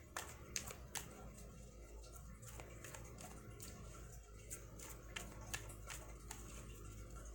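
Tarot cards being shuffled by hand: irregular soft clicks and slaps as cards are dropped onto the deck, about one or two a second.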